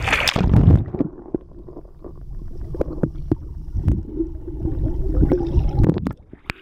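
A camera plunges into sea water with a loud splash, then stays under: muffled underwater gurgling and bubbling with scattered sharp clicks. It comes back up through the surface near the end.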